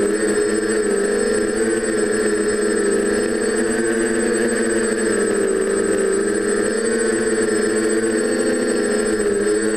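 Quadcopter's DJI 920Kv brushless motors spinning 9x5 propellers: a steady multi-tone buzz whose pitch wavers slightly up and down as the motor speeds are trimmed, with a thin constant high whine above it.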